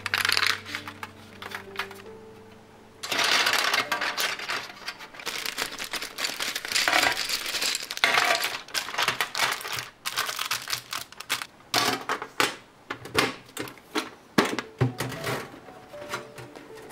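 Dense clattering of wooden coloured pencils being handled and sorted for several seconds, followed by separate sharp clicks and knocks as a metal pencil tin is set into a metal mesh drawer.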